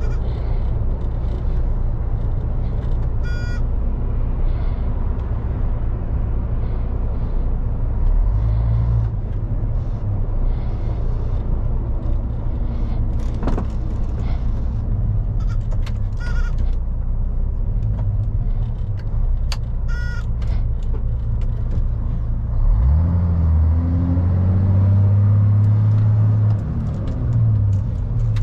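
A 2001 MAN lorry's diesel engine and road noise heard from inside the cab, a steady low drone while driving. About two-thirds of the way through, the engine revs climb and then drop away near the end. Two brief high-pitched squeaks come through, one early and one later.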